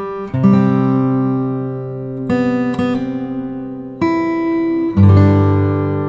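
Background music: acoustic guitar strumming chords, with a new strum about every one to two seconds.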